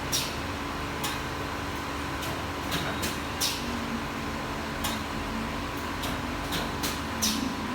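Edge banding machine and its panel feed conveyor running with a steady mechanical hum, with short, sharp clacks at irregular intervals, about a dozen in all.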